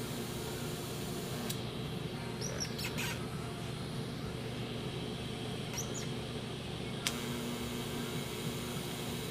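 Steady mechanical hum with faint hiss, and a bird chirping briefly twice. There is a click about seven seconds in.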